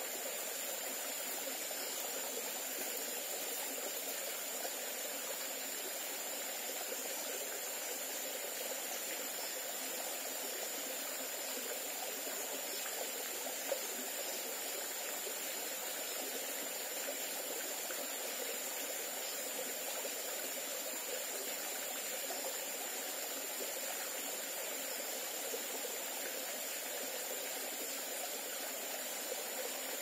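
Small rocky forest stream trickling and splashing over stones into a pool: a steady rush of running water.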